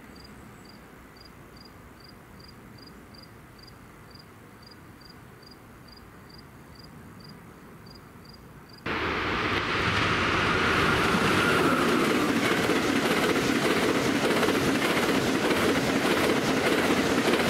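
Faint insect chirping, a small high pulse about three times a second, then about nine seconds in it cuts suddenly to an Amtrak passenger train with Amfleet coaches passing close at speed: loud, steady wheel-and-rail noise with clickety-clack over the rail joints.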